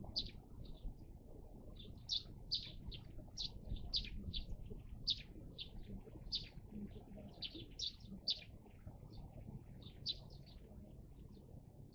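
Small birds chirping: a run of short, high chirps, about two a second, thinning out near the end, over a faint low background rumble.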